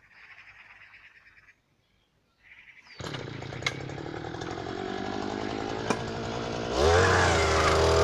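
A petrol earth auger's small two-stroke engine catches about three seconds in and runs steadily, then revs up and gets louder near the end.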